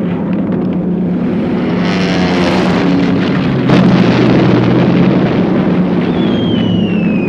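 World War II combat sound effects: a steady propeller-aircraft engine drone, with a plane rushing past about two seconds in and a sharp bang just before the halfway point. From about six seconds a whistle falls steadily in pitch, like a falling bomb, leading toward an explosion.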